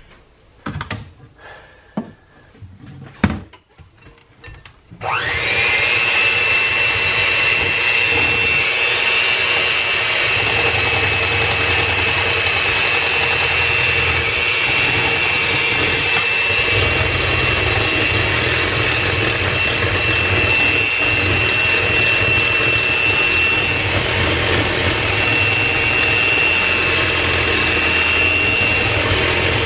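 A few clicks and knocks, then about five seconds in an electric mixer switches on and runs steadily with a high whine, beating the egg and vanilla mixture.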